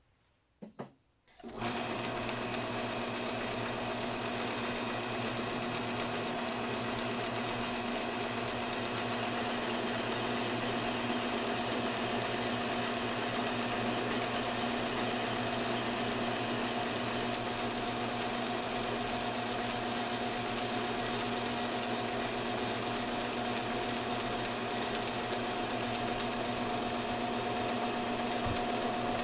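Old belt-driven metal lathe starting up about a second and a half in, then running at a steady pitch as it turns a piece of tiller drive shaft under the cutting tool.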